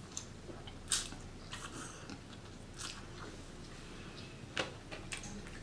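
Close-up mouth sounds of someone eating: chewing with a handful of short, sharp wet smacks and clicks, the loudest about a second in and again near the end.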